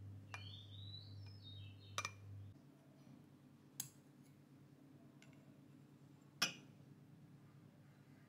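A few sharp clinks of a spoon against ceramic bowls, the loudest about six seconds in, over a low steady hum that stops abruptly about two and a half seconds in.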